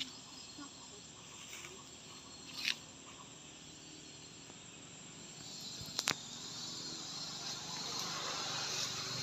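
Forest ambience with a steady high insect buzz that grows a little louder in the second half. There is a short high chirp about a third of the way in, and two sharp clicks close together just past the middle.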